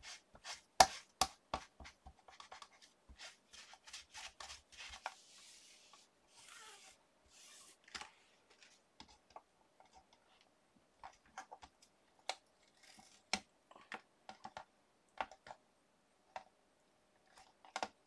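Stamps and stamping tools being cleaned up and handled on a craft table: scattered light clicks and taps, with a few short rubbing sounds.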